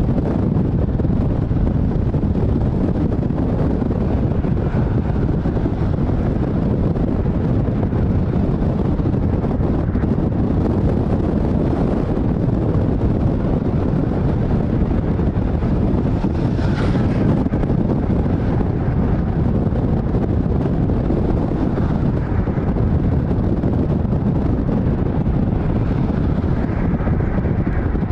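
Loud, steady wind buffeting the microphone over a continuous low rumble.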